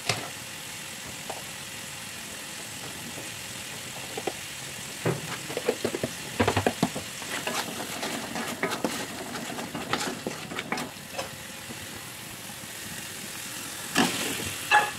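Chili and tomato spice paste sizzling steadily in a metal wok while a wooden spatula scrapes and stirs it. Near the end come two louder knocks as boiled eggs are tipped into the wok from a plate.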